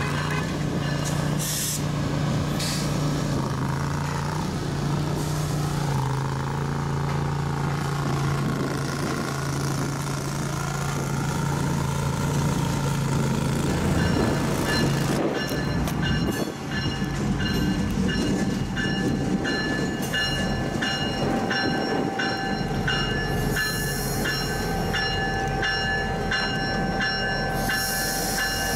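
EMD GP38 diesel-electric locomotive with a 16-cylinder two-stroke engine, running at low speed as it creeps up to and over a street crossing. About halfway in, its bell starts ringing in an even beat over the engine.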